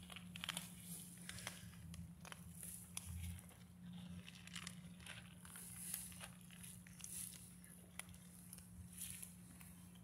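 Faint crackling and rustling of several cats eating dry kibble from tubs and shifting about in dry leaves and ivy, with scattered small crunchy clicks.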